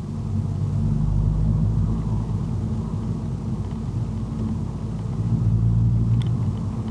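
Mazdaspeed3's 2.3-litre turbocharged four-cylinder engine running while the car is driven, a low drone that swells about a second in and again near the end.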